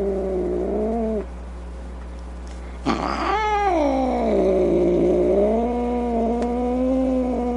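Angry domestic cat yowling: a drawn-out low moan that ends about a second in, then after a short pause a sudden sharp snarl that rises and falls into a long, wavering yowl.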